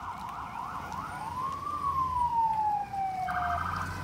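Emergency vehicle siren: a fast yelp for about a second, then a long wail that rises and slowly falls. A short buzzy horn blast comes in near the end.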